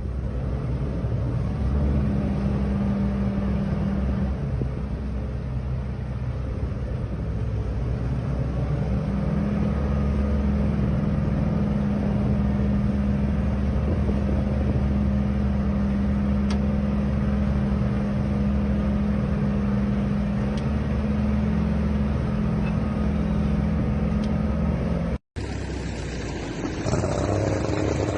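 Motorboat engine running steadily, a constant low drone with the noise of wind and water. Near the end the sound cuts off for an instant, and a different engine sound follows.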